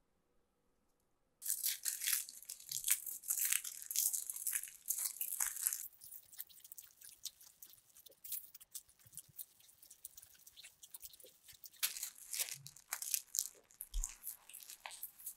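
Aluminium foil crinkling and tearing as it is handled, folded and creased by hand. It starts suddenly about a second and a half in with dense crackling, goes quieter with scattered crackles in the middle, and crackles loudly again near the end.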